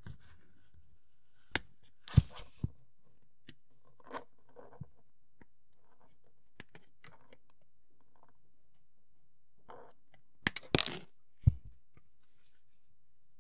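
Scattered sharp clicks and short rustles of plastic miniature kit parts and sprues being handled during assembly. There are two louder clusters, about two seconds in and again near the end.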